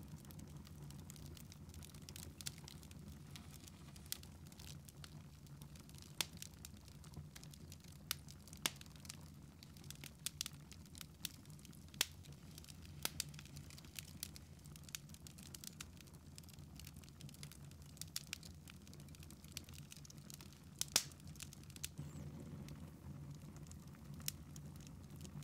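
Wood fire crackling in a fireplace: irregular sharp pops and snaps, the loudest pair near the end, over a low steady hum.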